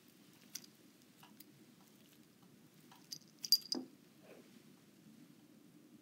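Small metal bell on a cat's collar jingling in a short cluster about three and a half seconds in, with a few soft clicks before it.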